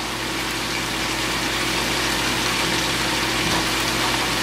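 Chicken frying in a pan, giving a steady sizzling hiss over a low steady hum.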